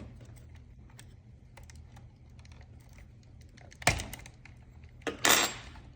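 Small clicks and taps of a flathead screwdriver working against the hex hub on an RC car's front axle, prying the hex loose so the axle pin can come out. A sharp click comes about four seconds in and a louder short rasp about a second later.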